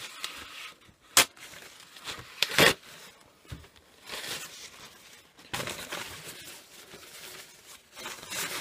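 A paper towel being torn and handled, with tearing, crinkling and rustling of paper and a sharp click about a second in.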